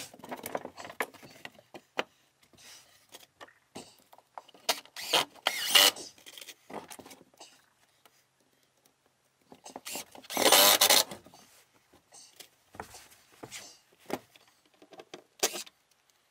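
DeWalt cordless drill driving screws into an OSB side panel in a few short runs, the longest about a second long just past the middle. Knocks and scraping from the board and tools being handled fall between the runs.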